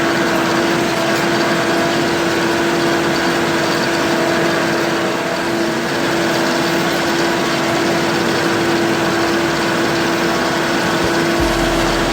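Engine running steadily at an even speed, with a steady whine over it.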